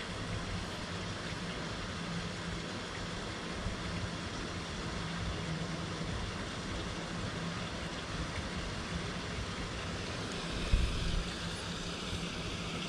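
Steady background drone: a constant hiss with a low, even hum beneath it, and a brief low thump about eleven seconds in.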